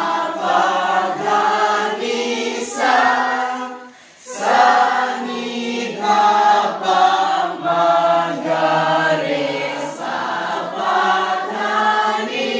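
A children's school choir singing together without accompaniment, moving through held notes in a sargam (Sa Re Ga Ma) scale exercise, with a short break about four seconds in.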